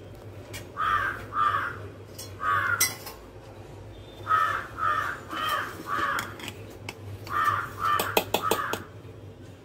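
A crow cawing repeatedly, about ten short caws in twos and threes. A few sharp clicks and knocks near the end, the loudest sounds, come from the plastic mixer-grinder jar being handled and set on its base.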